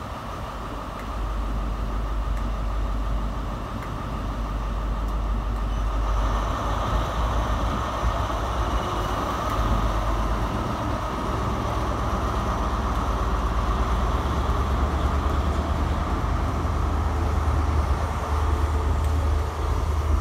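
Class 43 HST diesel power car with an MTU engine, running low at first, then powering up about six seconds in as the train pulls away. After that the engine note stays louder and steady.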